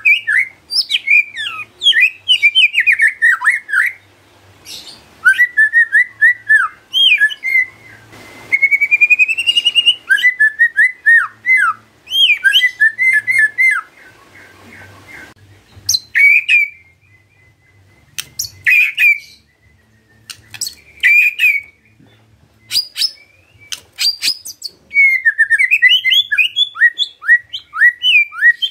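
White-rumped shama (murai batu) singing in bursts of fast, varied whistled phrases separated by short pauses, with a rising run of notes about nine seconds in and sharp clicking notes mixed in through the middle part.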